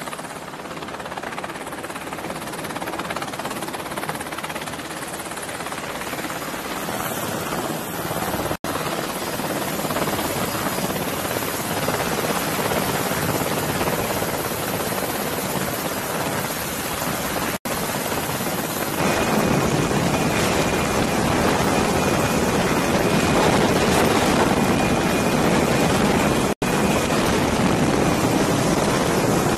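MH-60 Seahawk helicopter hovering low overhead: a steady rush of rotor and turbine noise mixed with rotor-downwash wind on the microphone. It grows louder about two-thirds of the way in and cuts out for an instant three times.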